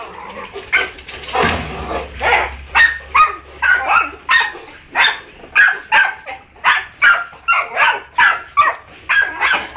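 Dog barking over and over, about two barks a second, starting about two seconds in.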